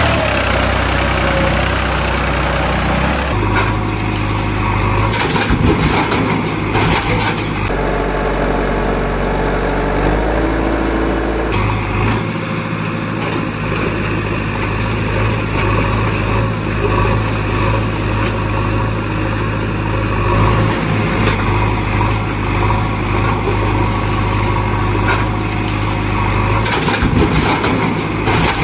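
Vehicle engine idling steadily, its sound changing abruptly a few times in the first twelve seconds.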